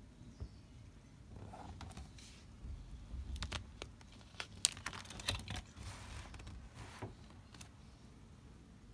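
Handling and turning the pages of a stamp album with plastic sleeves: a run of light clicks, taps and brief rustles, the sharpest click about halfway through.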